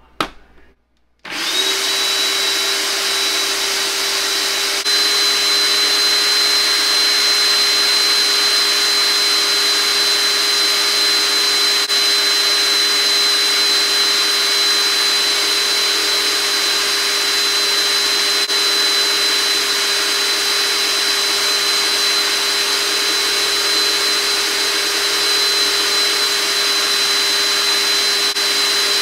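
Hamilton Beach food processor's motor starting up about a second in and running steadily on high with a constant whine, churning cream into butter. It gets slightly louder a few seconds after starting.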